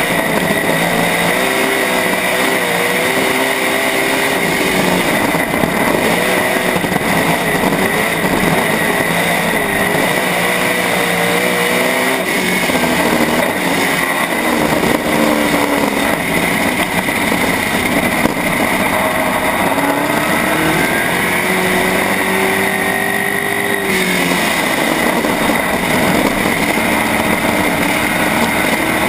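A USMTS dirt-track modified's V8 engine, heard from inside the cockpit, running hard. Its pitch rises and falls again and again as the throttle opens on the straights and lifts for the corners.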